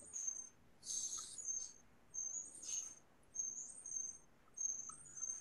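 Faint, high-pitched chirping: a short two-note chirp repeated about every second and a quarter.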